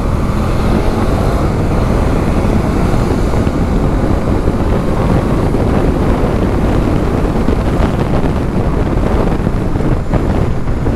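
Wind buffeting a handlebar-mounted action-camera microphone as a Bajaj Dominar motorcycle picks up speed on an open road, its engine running beneath the wind noise.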